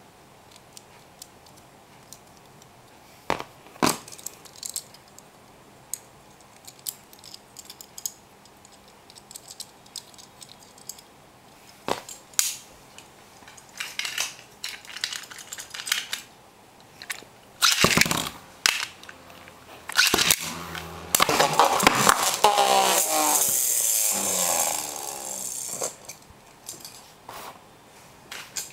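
Clicks and knocks of hard plastic and metal Beyblade parts being handled and fitted, then the metal tops launched into a plastic stadium, spinning and clashing in a loud, sustained whir for about five seconds near the end.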